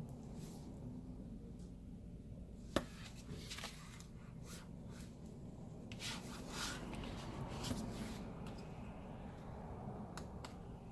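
Faint scraping and a few light clicks of a thin opening tool working along the adhesive between an iPad's glass and its frame, with one sharper click about three seconds in.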